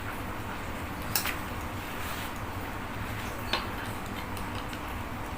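Two short, sharp clicks about two seconds apart, from metal parts and tools being handled during steering rack assembly, over a steady low background hum.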